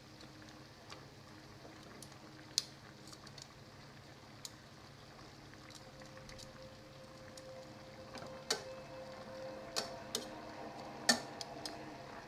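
Pork chops cooking in soy and calamansi sauce in a steel pan: a faint low hiss with scattered sharp clicks and pops, more frequent and louder in the second half.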